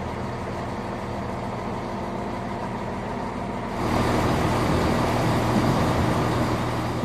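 Diesel multiple unit's engine running steadily with a low, even hum. The sound grows louder and rougher about four seconds in.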